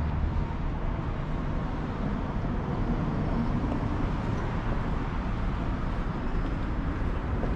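Steady background din of a busy airport, an even wash of low rumbling noise with faint voices mixed in.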